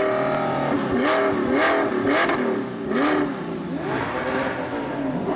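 Audi R8 sports car engines revving in quick throttle blips: the pitch rises and falls about four times in the first three seconds, then swells more slowly.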